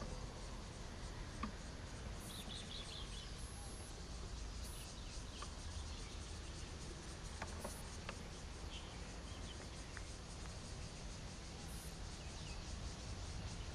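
Steady outdoor background noise with faint insect chirring, a few short bird chirps and a few light clicks.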